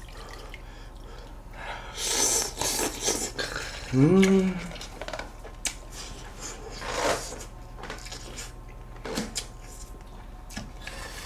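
Tableware being handled: scattered light clinks and knocks of bowls and metal utensils, with brief scraping or shuffling noises about two seconds in and again around seven seconds. A short voiced 'mm'-like sound from one of the eaters comes about four seconds in.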